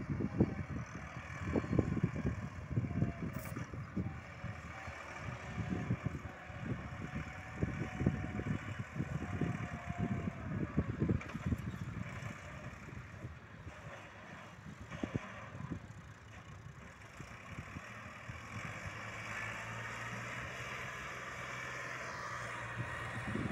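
Massey Ferguson tractor's diesel engine running under load as it hauls a loaded trolley through loose sand. The sound is uneven and rumbling at first, settling into a steadier engine hum over the last few seconds.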